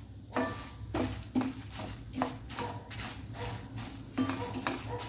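A wooden spatula stirring and scraping whole spices, toor dal, dried red chillies and curry leaves as they roast in a little oil in a non-stick frying pan. The spatula clicks against the pan about twice a second over a low steady hum.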